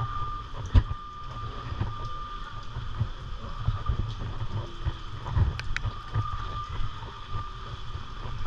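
Steady rain falling, with gusty wind buffeting the phone's microphone and a faint steady high tone running under it. A sharp thump about a second in, and a few faint clicks around the middle.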